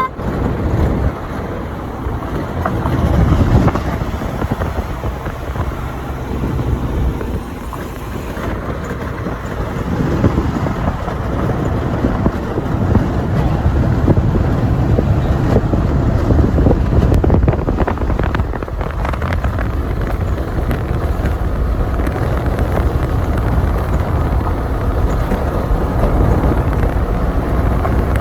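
A vehicle on the move: a steady low rumble of engine and road noise with wind buffeting the microphone, getting a little louder about ten seconds in.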